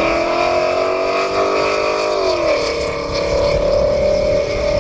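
S550 Ford Mustang's engine accelerating past, revs climbing, then dropping with an upshift about two seconds in before it pulls on again.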